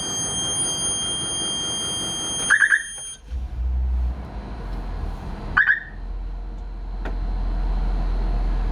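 Blue Bird school bus engine starting about three seconds in and then idling steadily with a low, even sound. Before it starts there is a steady high-pitched tone from the key-on dashboard. Quick chirps come about two and a half seconds in and again near six seconds.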